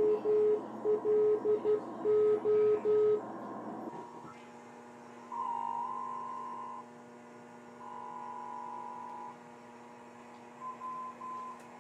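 Radio-room Morse code tones keyed on and off in short and long beeps. The beeps are lower-pitched for the first three seconds, then higher-pitched, with two longer held tones and a run of quick beeps near the end, over a steady electrical hum.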